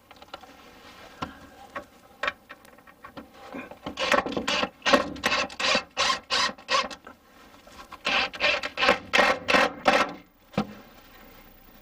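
Repeated rasping, scraping strokes of hand work on a part, about three or four a second, in two runs with a short break between them. A few faint knocks come before them.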